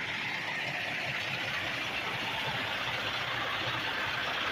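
Kenworth T800 diesel truck engine idling steadily, growing slightly louder toward the end.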